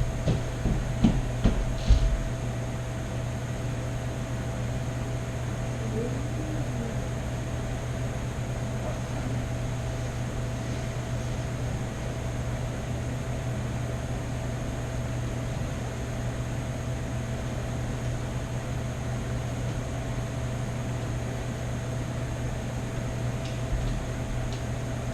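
Steady low hum with a faint higher whine from a running room appliance, after a few knocks and bumps in the first two seconds.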